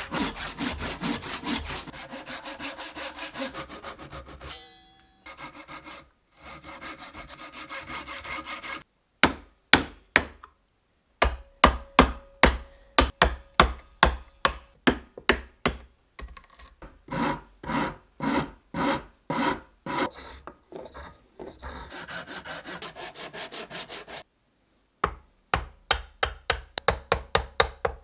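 Handsaw cutting into a wooden block clamped in a vise, in back-and-forth strokes: quick and continuous at first, then in separate sharp strokes about two a second, in runs broken by short pauses.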